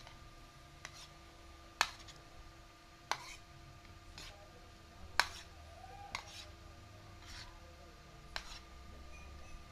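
Metal spoon and fork clinking and scraping against a plate while instant noodles are tossed and mixed, with sharp clinks about once a second.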